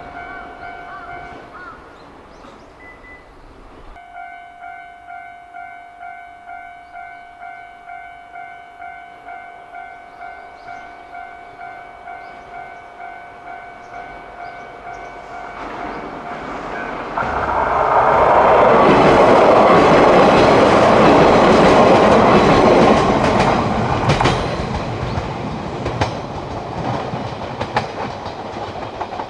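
A level-crossing warning bell rings with a steady, pulsing tone about twice a second. Partway through, a Yoro Railway electric train passes close by: the rumble and clatter of its wheels over the rail joints swell to a loud peak, then fade.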